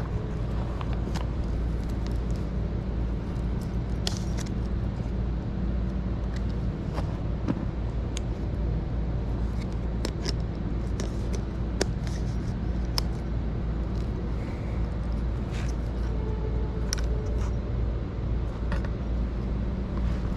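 Steady low rumble and hum of a OneWheel rolling over pavement, with scattered sharp clicks and ticks.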